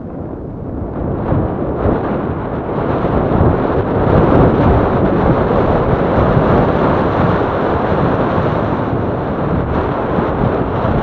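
Wind buffeting the microphone of a mountain bike rider moving at speed, a loud, rough rush with rumble beneath. It builds over the first four seconds and then holds steady.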